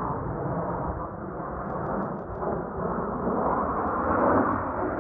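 Jet noise from a formation of Northrop F-5E Tiger II fighters, each with twin J85 turbojets, a steady rumbling rush that grows louder in the second half as the jets come closer.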